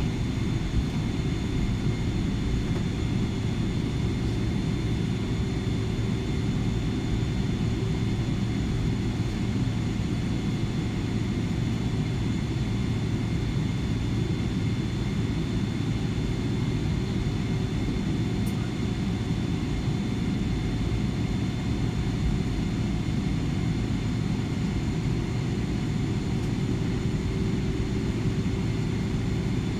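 Steady cabin noise of a jet airliner taxiing: a low hum with a few faint steady high tones over it, unchanging throughout.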